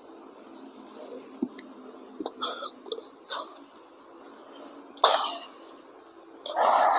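A person's cough about five seconds in, the loudest sound, with short breaths and a few small clicks before it and another brief throat sound near the end.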